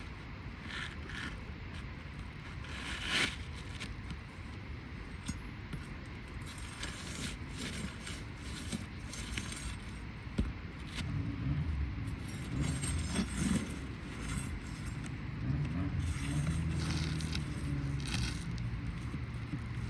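Scattered clicks and scrapes of asphalt shingles and hand tools being handled on a roof, over a low wind-like rumble. About halfway through, a vehicle engine's low hum comes in underneath and keeps going.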